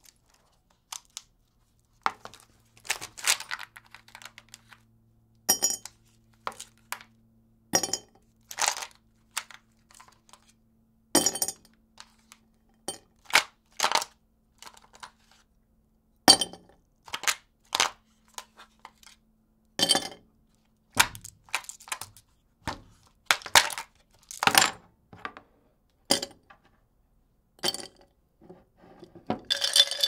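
Ice cubes dropped one at a time into a glass mason jar mug, each landing with a sharp clink against the glass and the ice already inside, at irregular intervals. Right at the end the ice begins a dense, continuous rattle in the jar.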